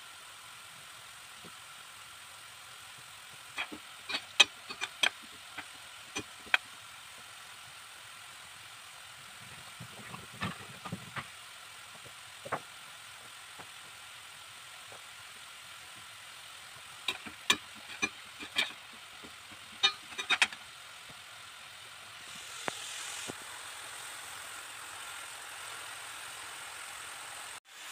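Potato strips deep-frying in sunflower oil: a steady faint sizzle with clusters of sharp pops and crackles several times. The sizzle grows slightly louder near the end.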